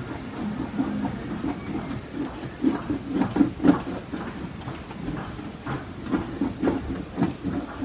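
Rhythmic scrubbing and scraping, a few strokes a second, as a hand-held painting tool is rubbed back and forth over a hardened, textured cold wax and oil surface. The strokes are loudest a few seconds in.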